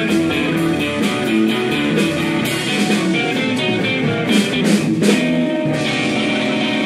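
Live blues band playing: electric guitar leads over bass guitar and drums, with a cluster of cymbal crashes about four to five seconds in.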